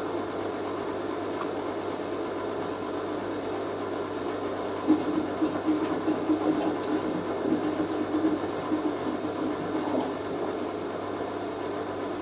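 Hoover A3060 washing machine's drum turning a wet load, with water sloshing. It grows louder and more uneven from about five seconds in and settles again near ten seconds, as the load is tumbled to balance it before spinning.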